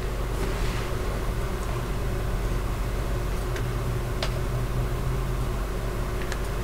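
Steady low mechanical hum with an even hiss over it, broken by a few faint small clicks.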